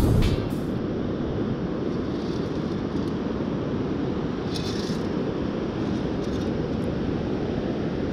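Steady low rush of surf and wind noise on the microphone.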